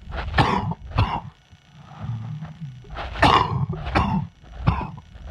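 A man coughing from a chest cold in two bouts: two coughs, a short pause, then three more.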